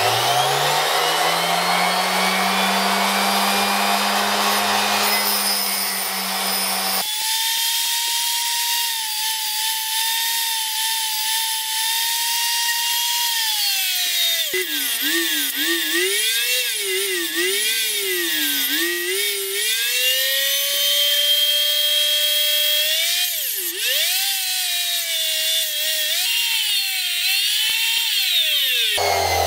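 Ferrex 120-watt mini bench grinder running with a steady motor whine, spinning up just at the start. Its pitch later sags and climbs several times as the speed changes while a small chisel is sharpened on the wheel.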